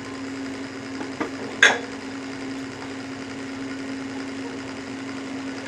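Steady low mechanical hum with a few light clicks, the sharpest about a second and a half in.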